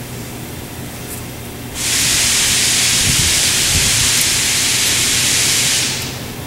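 A loud, steady hiss that starts suddenly about two seconds in and dies away about four seconds later, over a low steady hum.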